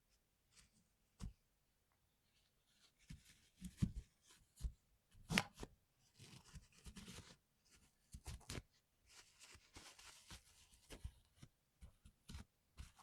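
Irregular small clicks and knocks with scraping and rustling, from hands working on mechanical keyboard parts; the sharpest knocks come about four and five and a half seconds in.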